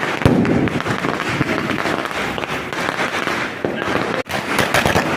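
Firecrackers going off in a rapid, continuous crackle of many small bangs. It breaks off briefly about four seconds in, then comes back louder.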